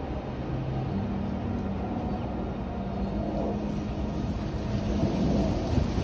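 Outdoor wind rumbling and buffeting the phone's microphone. A steady low hum runs underneath and steps up in pitch about a second in. The rumble grows louder about five seconds in.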